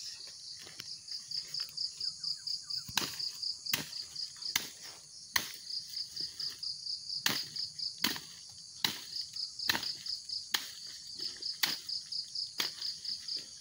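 Repeated dull thuds, roughly a dozen and less than a second apart, of an overripe oil palm fruit bunch being beaten to knock its loose fruits off. Over them runs a steady, pulsing high trill of crickets.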